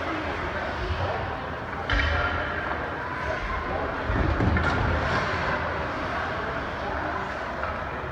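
Hockey arena crowd chatter, with a sharp knock about two seconds in and another about four and a half seconds in.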